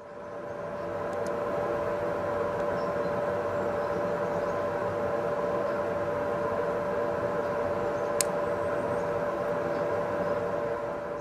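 CS Unitec hydraulic magnetic drill's hydraulic motor running unloaded, a steady whine that holds one pitch. A single sharp click about eight seconds in.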